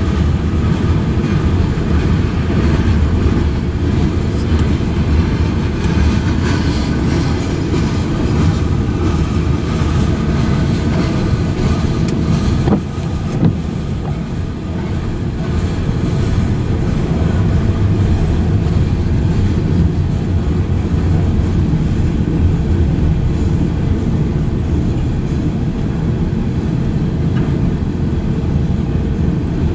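Cars of a manifest freight train rolling through a grade crossing at speed: a loud, steady rumble of steel wheels on rail, dipping briefly about 13 seconds in.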